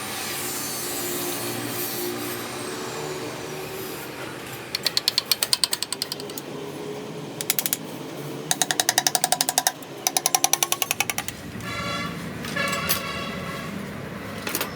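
A power tool hammering in several rapid bursts of about ten strokes a second, with steady workshop noise between them.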